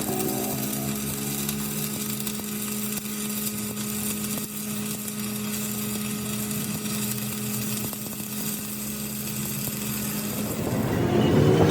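Power tool running steadily in metal rim repair work, a constant hum over an even hiss.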